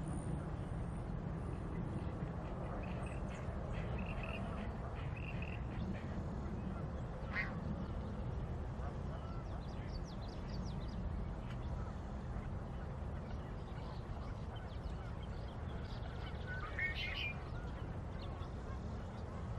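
Outdoor ambience: a steady low rumble with a few short bird calls over it, the clearest about seven seconds in and a louder one near the end.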